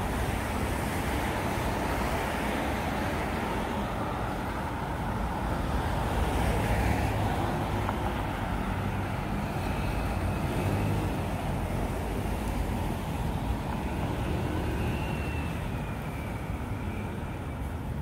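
City road traffic: a steady rush of cars passing, swelling louder about six to eleven seconds in.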